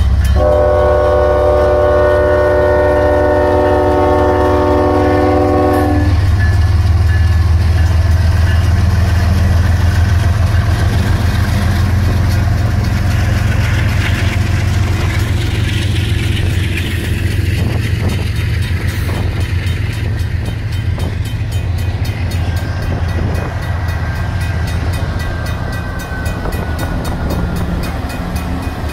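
Diesel freight locomotive's air horn sounds one long blast of several notes at once, ending about six seconds in. After it the locomotives' diesel engines rumble and the freight cars roll past, clattering on the rails and slowly fading.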